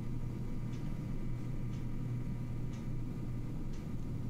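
Pot of macaroni at a rolling boil on a high gas flame: a low steady rumble with faint ticks about once a second.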